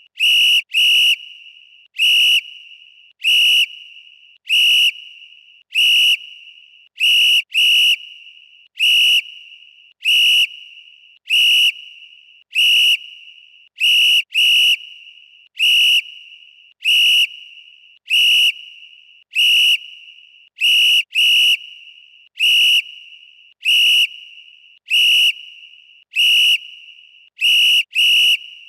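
Referee whistle blown in short, sharp blasts, about one every second and a quarter, now and then two in quick succession. Each blast is a single high tone with a brief ringing tail.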